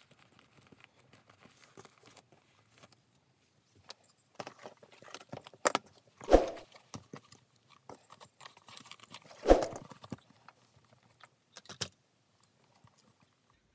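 A leather bag being handled on a cutting mat: soft rustling of the leather, light clicks of its zipper and buckle hardware, and two dull knocks about three seconds apart, which are the loudest sounds.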